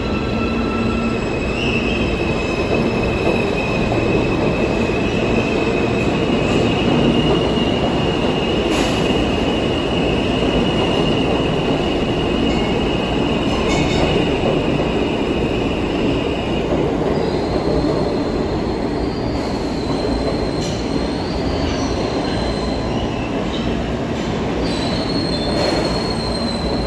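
R160 subway train departing the station and rolling past, a steady rumble of wheels on rail. Over it runs a high, steady wheel squeal that moves up in pitch about two-thirds of the way through.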